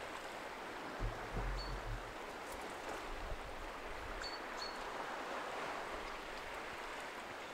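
Steady hiss of distant sea surf washing along the rocky shore, with a brief low rumble about a second in and a few short high chirps.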